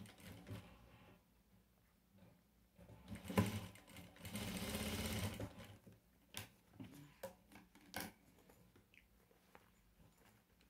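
Electric sewing machine stitching in short runs, stopping and starting, with a few sharp clicks of handling in between.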